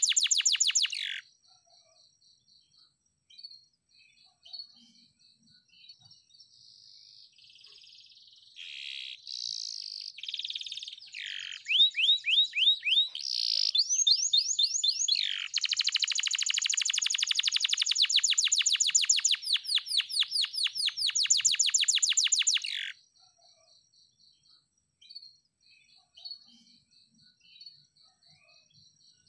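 Domestic canary singing: a long song of rapid trills and rolling phrases, loudest in a sustained run of fast trills from about twelve to twenty-three seconds in, with quieter gaps before and after. A faint rapid high ticking carries on through the quiet stretches.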